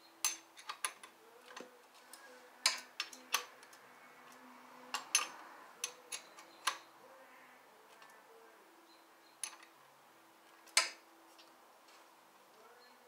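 Scattered sharp metallic clicks and taps of hand tools and parts against the motorcycle's metal during hands-on battery work. They come in clusters through the first half, then turn sparse, with one louder click later on.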